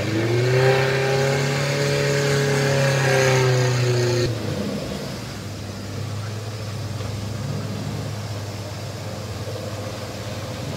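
Suzuki Jimny off-roader's engine revving hard in deep muddy water, its pitch rising and easing, then dropping abruptly to a lower steady run about four seconds in.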